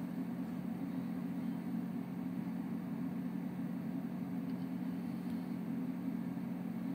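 Steady low hum over a light hiss, unchanging throughout, with no distinct events.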